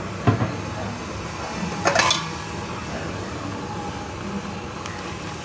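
Kitchenware knocking: two light knocks just after the start and a louder clatter about two seconds in, over a steady low background hum.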